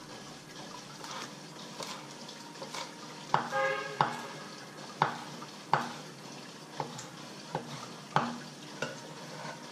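Kitchen knife chopping green onions on a wooden cutting board: about eight sharp knocks of the blade on the board, irregularly spaced roughly a second apart, starting about three seconds in after lighter slicing.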